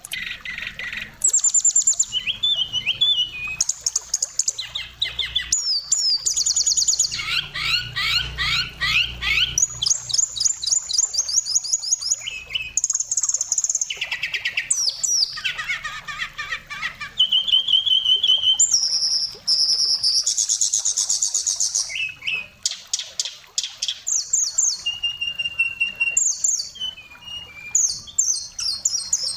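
Oriental magpie-robin singing a long, varied song: fast repeated trilled notes, sweeping phrases and a few steady high whistles, one after another with short pauses.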